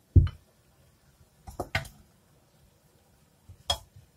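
Plastic spatula and glass mixing bowls knocking and clinking while flour is scooped and tipped into the dough: a heavy knock just after the start, a few quick taps about a second and a half in, and one sharp clink near the end.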